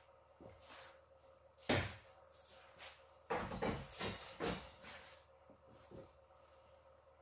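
Steel bars being laid across a garage inspection pit, clanking against each other and the pit edge. One sharp clank comes about two seconds in, then a quick run of knocks and clanks a second or so later.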